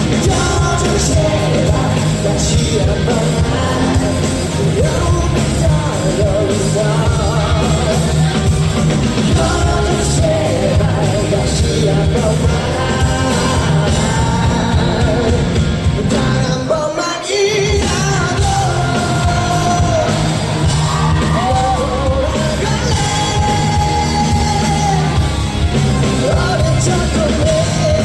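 Live band playing a rock arrangement while a male lead vocalist sings, heard in a large concert hall. The band breaks off briefly a little past the middle, then comes back in.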